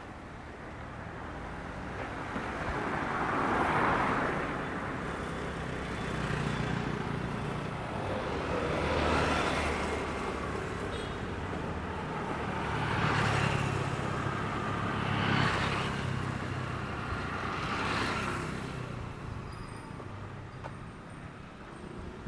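Road traffic: a series of motor vehicles passing one after another, about five passes, each swelling up and fading with engine hum beneath.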